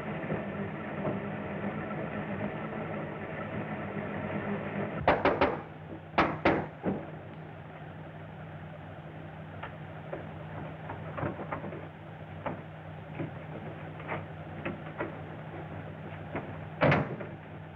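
A car engine runs at first. Then comes a cluster of sharp knocks and bangs about five to seven seconds in, lighter scattered knocks after them, and one more loud bang near the end, all over a steady low hum.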